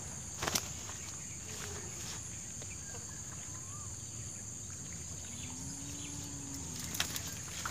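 Steady, high-pitched chirring of insects, with a couple of brief sharp knocks from handling, one about half a second in and one near the end.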